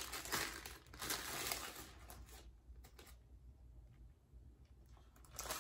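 White paper Starbucks bag crinkling and rustling as a sandwich is pulled out of it, then a few soft clicks before it goes quieter.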